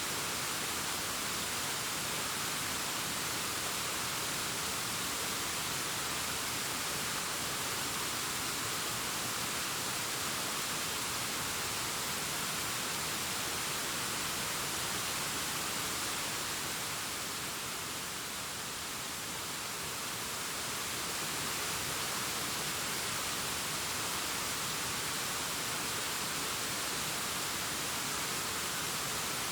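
Distant waterfall cascading down a rock face: a steady hiss of falling water, with most of its energy in the upper range, easing slightly for a few seconds past the middle.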